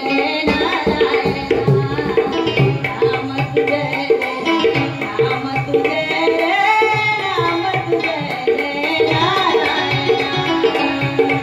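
Marathi devotional song: a steady tabla rhythm under a wavering singing voice and melody.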